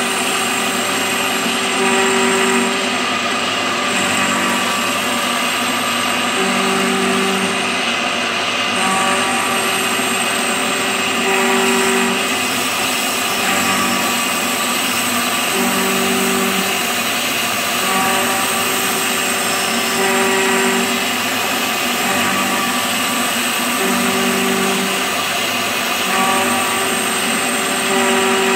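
End mill on a CNC mill cutting a pocket in cast iron: a steady machining noise from the spindle and cutter, its tone swelling about every two seconds as the cut changes.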